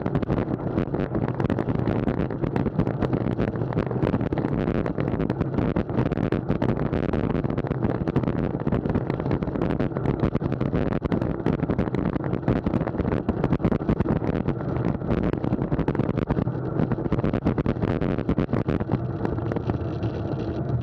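Wind buffeting an action camera's microphone, with tyre and road noise from a road bike riding at speed.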